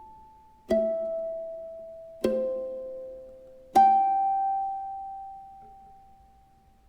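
UKU C Series Mio ukulele playing three chords about a second and a half apart. The last chord is left to ring and fade away.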